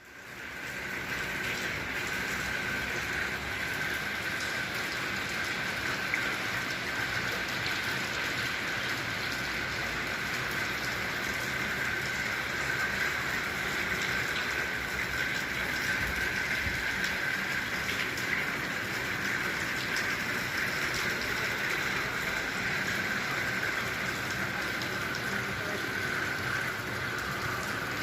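Steady rain falling, a constant hiss with many small drop ticks on hard surfaces, fading in over the first second.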